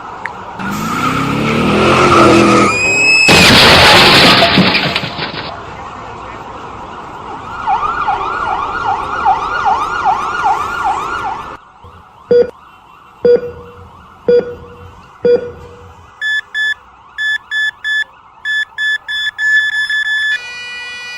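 A run of emergency and alarm sound effects. First a loud rushing noise with a rising whistle, then a siren in fast yelp mode, wailing up and down about two and a half times a second. Then four short honks about a second apart, and finally a car alarm's rapid electronic beeping.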